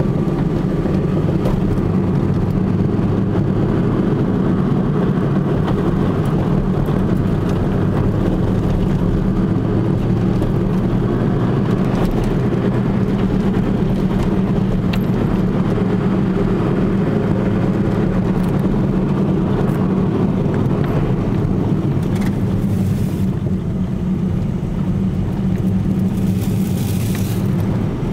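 Car driving, a steady rumble of road and engine noise, with a few faint knocks from its newly fitted front coilover suspension: the abnormal noise the coilovers make over the road.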